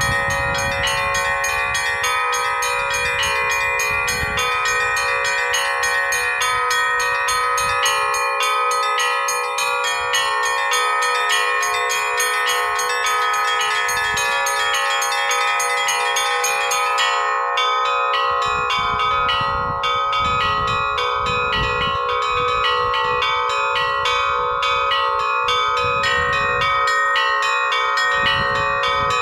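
Russian-style bell ringing (zvon) on a set of cast bells hung on a portable belfry and played by one bell ringer: small bells struck in a rapid, continuous pattern over the sustained ringing of the larger bells.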